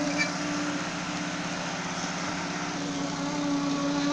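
An engine of site machinery running steadily at a constant speed, with an even low hum.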